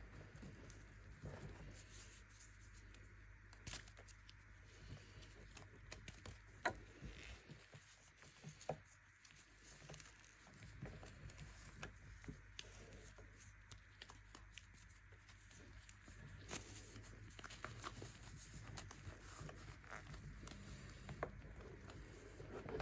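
Faint crunching and crumbling of compressed baking soda being crushed, with scattered soft crackles and a few sharper snaps, over a low steady hum.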